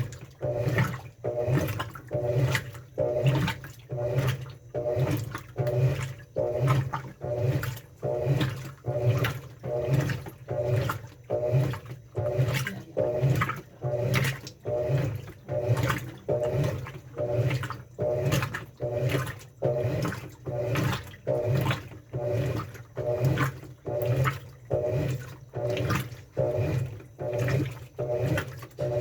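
Top-loading washing machine with a central agitator, agitating a load of water and clothes: a steady rhythm of sloshing swishes, somewhat more than one a second, over the low hum of the motor.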